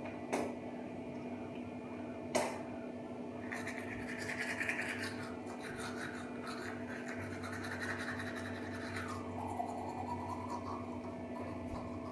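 Manual toothbrush scrubbing teeth: a continuous wet, scratchy brushing that swells and fades, over a steady low hum. Two sharp clicks come near the start, about two seconds apart.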